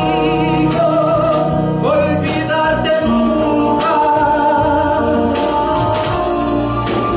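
A male singer with a small live band of keyboard, conga drums and electric guitar, performing a Latin romantic ballad.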